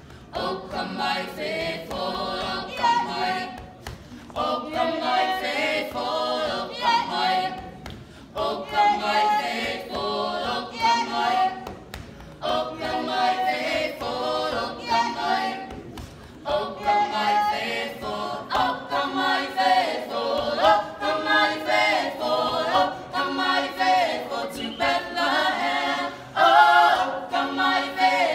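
A small group of carolers singing a Christmas carol a cappella, line by line, with short breaks for breath between phrases.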